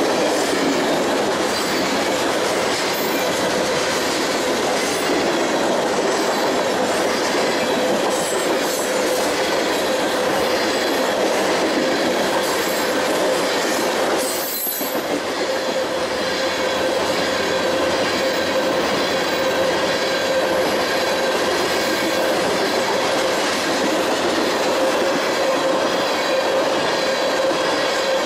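A long freight train's cars rolling past: a steady rumble and rattle of wheels on rail, with a thin steady squeal from the wheels through it and a few faint clicks. The sound dips briefly about halfway through, then carries on as before.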